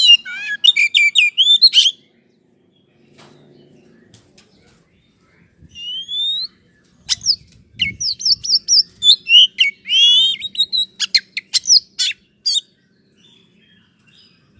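Oriental magpie-robin (kacer) song used as a bait call: a burst of varied whistles and harsh chattering notes, a pause with one rising whistle, then a longer run of quick, sweeping whistles and rasps. A faint low hum sits underneath.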